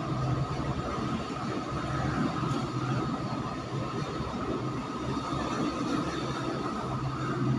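Steady mechanical hum with a low drone and a thin high whine over a noisy rush, easing slightly in the middle and swelling again near the end.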